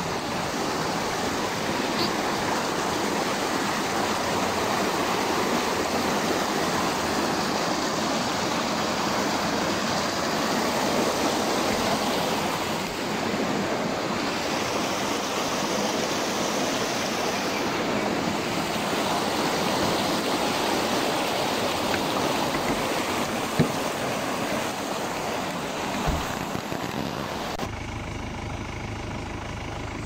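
Shallow creek rushing steadily over rocks. Near the end come two sharp knocks about two and a half seconds apart, then the water sound cuts off and a low steady hum takes over.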